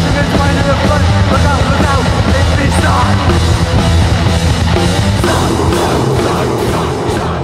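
Loud rock music: a full-band track from the album, dense and continuous, shifting to a different section about five seconds in.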